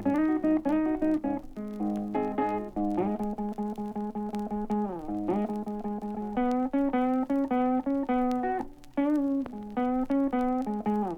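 Blues guitar solo between sung verses: single picked notes and repeated figures with string bends, over a bass line.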